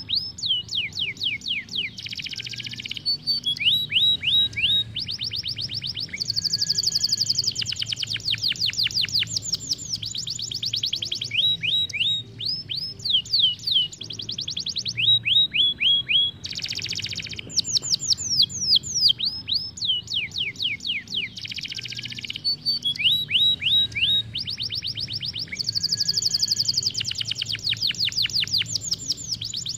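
Isabel domestic canary singing a long continuous song in tours: phrases of quick repeated falling whistle notes, several a second, alternating with fast rolling trills, each phrase changing every second or two.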